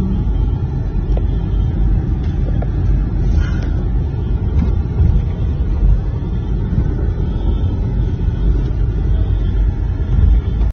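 Steady, loud low rumble of a vehicle driving, road and wind noise heard from inside the car, which cuts off abruptly at the end.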